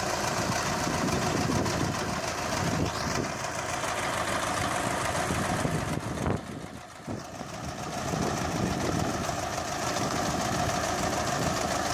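A tractor engine running steadily at idle. The sound dips briefly about halfway through, then comes back.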